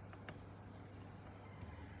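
Very quiet pause in typing on a lubed Akko Rose Red mechanical keyboard: a low steady hum, with two faint key clicks just after the start.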